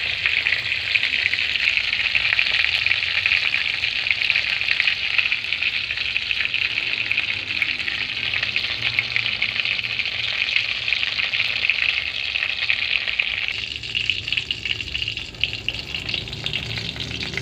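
Venison sizzling and crackling as it fries in hot oil. The sizzle eases somewhat about three-quarters of the way through.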